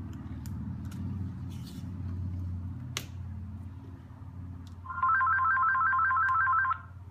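A telephone ringing: a fast warble between two tones for about two seconds near the end. Before it, a few light clicks and one sharp tick about three seconds in over a steady low hum.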